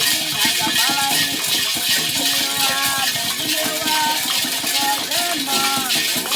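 Hand rattles shaken in a steady rhythm while a group sings a Candomblé chant.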